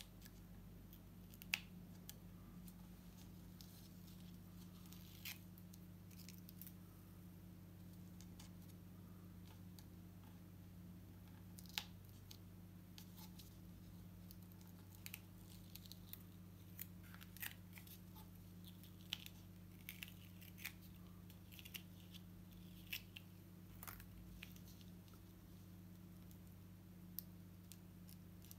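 Fingernails picking at and peeling the protective backing paper off an adhesive sand-painting sheet: scattered faint paper clicks and crackles, with a couple of sharper clicks, over a steady low hum.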